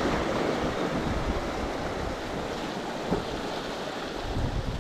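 Sea surf washing and splashing over the rocks of a rocky shoreline, a steady rush, with some wind rumbling on the microphone.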